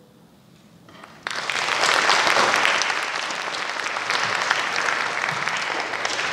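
Audience applause in a concert hall. It breaks out suddenly about a second in, after a moment's quiet at the end of the performance, and carries on steadily.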